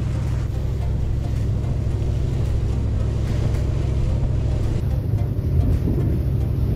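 A passenger ferry's engine runs at a steady cruising drone while the boat is under way. In the second half, gusts of wind on the microphone flutter over the hum.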